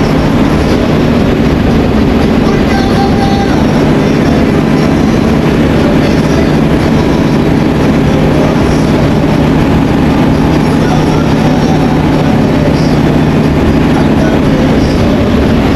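Bus engine running steadily with road rumble, heard from inside the driver's cab while cruising at highway speed: a continuous low drone with no change in pace.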